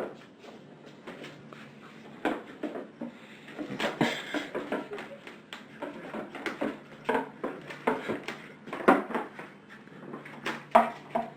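Irregular taps, knocks and scrapes of a cat moving about in a cardboard box.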